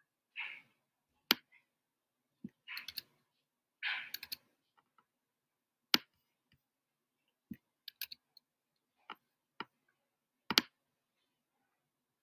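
Writing at a desk: a dozen or so scattered sharp clicks, irregularly spaced, and three short scratchy strokes in the first half.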